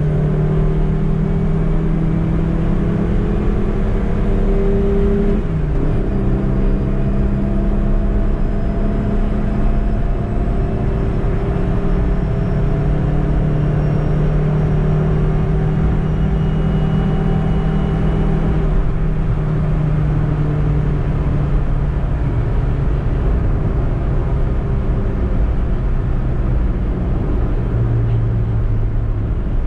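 Suzuki Eeco's 1.2-litre four-cylinder petrol engine pulling the van along the road, its note steady over a constant low road rumble. The engine pitch drops suddenly about five seconds in, then holds fairly even, and sinks lower near the end.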